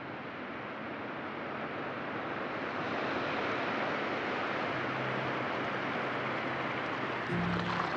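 Surf washing up a beach: a steady rush of water and foam that swells over the first few seconds. Faint low tones come in near the end.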